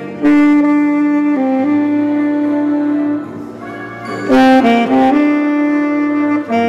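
Solo tenor saxophone playing long held notes, with a quick run of short notes about two-thirds of the way through.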